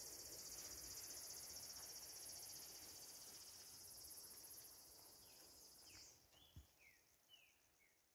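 Faint, steady insect trilling that fades out about six seconds in, followed by a quick series of short falling chirps.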